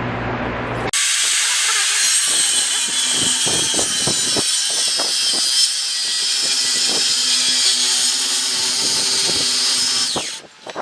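Maktec handheld circular saw cutting lengthwise into a log, a loud steady high-pitched cutting noise. It starts abruptly about a second in and drops away just before the end as the blade winds down.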